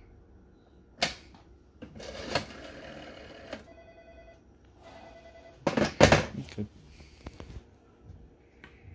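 Western Electric Model 500 rotary desk telephone being handled: a sharp click about a second in, then a few seconds of clatter with a short steady tone near four seconds. The handset is set down on its cradle with a loud clatter about six seconds in, followed by a few light clicks.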